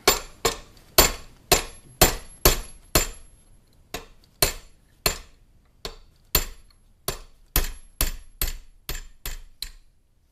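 Hammer striking a steel punch to drift the rear sight out of its dovetail on a 1911 pistol slide: about twenty sharp metal-on-metal strikes, about two a second, each with a high ring, stopping near the end.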